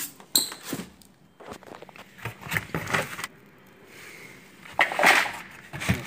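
Ceiling fan parts being handled and pulled out of a cardboard box: scattered rustling, scraping and light knocks, with a louder rustle about five seconds in.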